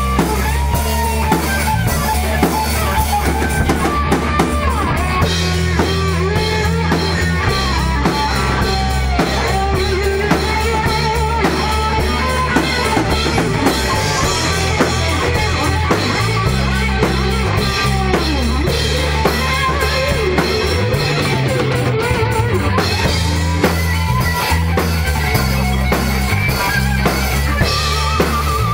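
Rock music: guitar playing a wavering melodic line over bass notes and a drum kit keeping a steady beat.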